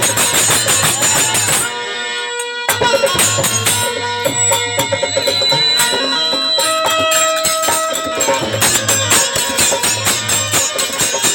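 Instrumental interlude of Indian folk (Bhojpuri nirgun) music: fast hand-drum strokes and jingling percussion over a held melody line. The percussion stops for about a second around two seconds in, leaving the melody, then comes back in.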